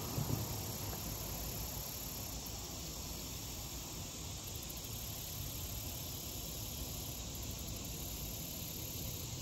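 Insects chirring steadily and high-pitched in a pulsing chorus over a low, even hiss of background noise. A low engine rumble dies away in the first half second.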